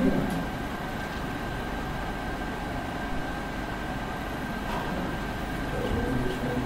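Steady hum of room noise with a thin, constant high whine running through it. Faint voices are heard briefly at the start and again near the end.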